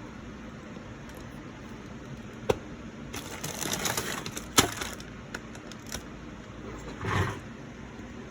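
Handling noise around a laptop: two sharp clicks about two seconds apart with a short rustle between them, and another brief rustle near the end.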